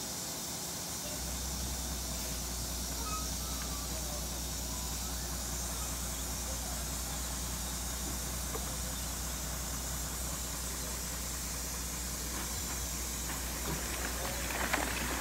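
Truck engine running steadily as it backs the trailer carrying a catamaran down the boat ramp, a low hum that sets in about a second in, over a steady hiss.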